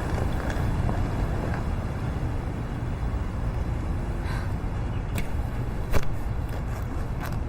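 Steady low rumble of a running car or road traffic, with a few light clicks and one sharper knock about six seconds in.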